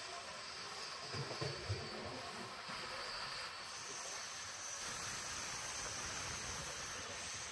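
Steady running noise of a moving passenger train, heard from inside a coach, with a hiss. A few low thumps come a little over a second in.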